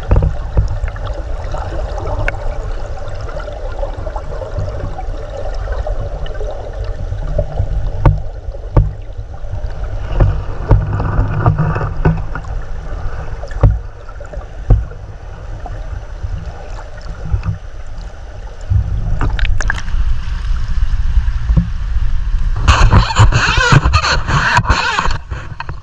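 Flowing river water heard underwater through a camera housing: a steady low rumble with scattered sharp clicks and ticks. Near the end a much louder, brighter rushing noise comes in.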